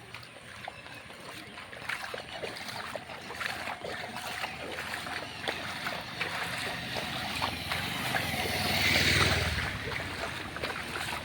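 Floodwater rushing: a steady wash of water dotted with many small splashes and crackles. It swells louder, with a low hum, about nine seconds in.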